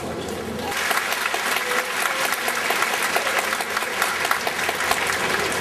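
Large audience applauding in an arena hall. The clapping swells in just under a second in and keeps up steadily.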